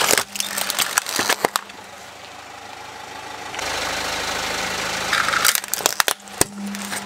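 Hard plastic toys cracking and snapping under a slowly rolling car tyre: a burst of sharp cracks at the start and another about five and a half seconds in. The car's engine runs steadily underneath.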